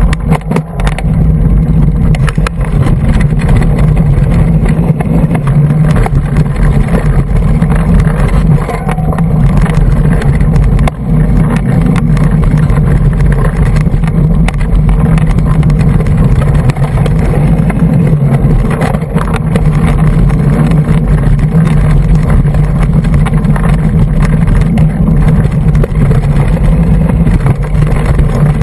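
Heavy wind rumble on the action camera's microphone while a Cannondale hardtail mountain bike rides singletrack, with frequent rattles and knocks from the bike over rough ground.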